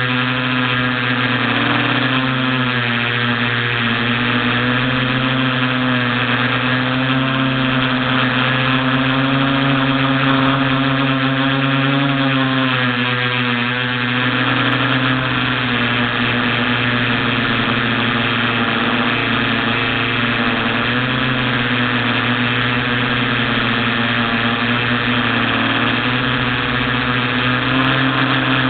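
Electric motors and propellers of a TBS Discovery FPV quadcopter, heard through its onboard camera: a steady hum whose pitch wavers up and down as the throttle changes.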